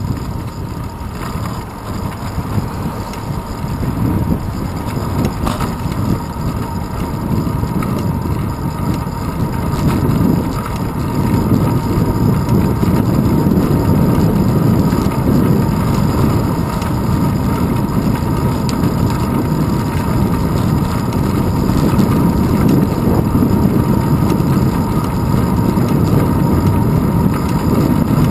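Wind buffeting and road rumble picked up by a handlebar-mounted camera on a moving road bicycle, a steady low rumble that grows louder about ten seconds in.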